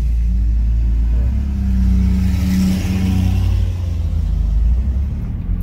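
A motor vehicle's engine runs with road noise, its note and hiss swelling to a peak around the middle and then easing off.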